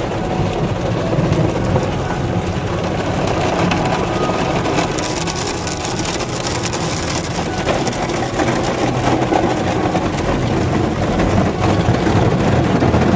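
Automatic car wash working over the car, heard from inside the cabin: a loud, steady rush of spraying water and scrubbing against the body and windows, with a brighter hiss for a couple of seconds midway.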